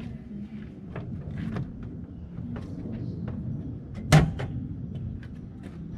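A Golf's hood and its newly replaced latch being tested: one loud, sharp metallic clunk about four seconds in, followed by a lighter click. Small handling clicks sound before it over a low steady hum.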